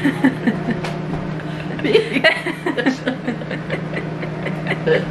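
Two women laughing, short giggles and bits of voice, over a steady low hum.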